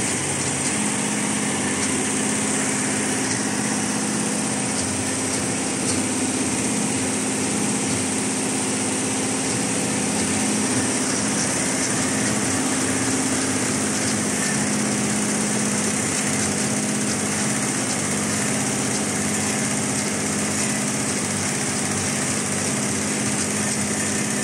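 Richpeace multi-head computerized embroidery machine running steadily, its needles stitching into the fabric with a continuous mechanical whir.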